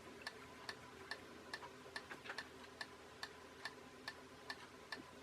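Faint, even ticking, about two and a half ticks a second, over a faint steady hum.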